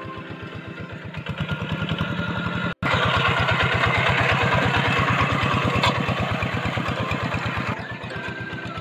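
Single-cylinder diesel engine of a two-wheel hand tractor plowing a flooded rice paddy, running with a fast, even chug. About three seconds in it becomes closer and louder, with a brighter clatter as the cage wheels churn the mud, then drops back to a more distant chug near the end.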